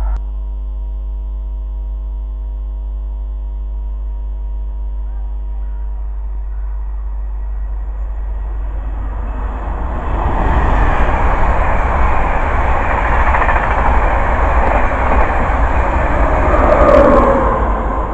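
An InterCity 225 electric express passing through at speed. First comes a steady hum of several tones. From about ten seconds in there is a loud rush of wheels on rail and air, with a faint high whine over it, loudest just before the end.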